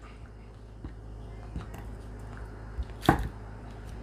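Chef's knife cutting small yellow potatoes on a wooden cutting board: a few light taps, then one sharp knock of the blade hitting the board about three seconds in.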